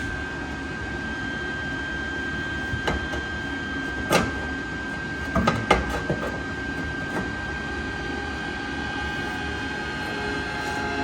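A handful of sharp metal knocks and clanks, the loudest a quick cluster about five to six seconds in, as a piece of sheet metal is pushed up into place for welding. Under them runs a steady low hum with a thin high whine.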